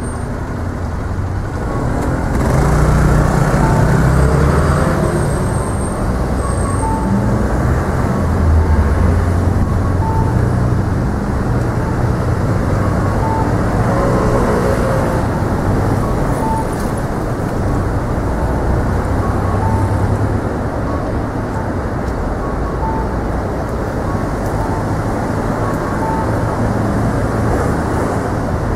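Steady road traffic: cars and buses passing with a continuous rumble that swells and fades, and a short beep repeating about every two seconds.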